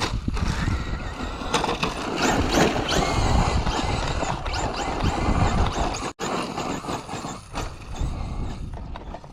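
Traxxas Slash electric RC truck running on dirt and gravel, its brushless motor's whine rising and falling over the scraping and crunching of the tyres. The sound drops out for an instant about six seconds in.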